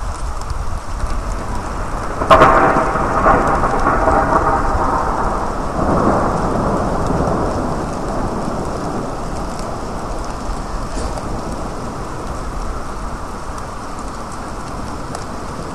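Steady rain falling, then a sharp thunderclap about two seconds in that rolls into rumbling thunder, swelling again around six seconds and slowly fading.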